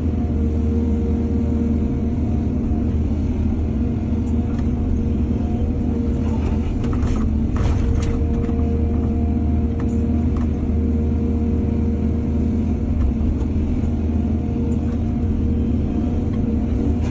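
Excavator's diesel engine running steadily under load, with a few short knocks and rattles around the middle.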